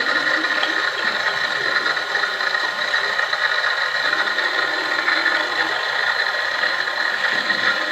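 A small motor running with a steady mechanical hum.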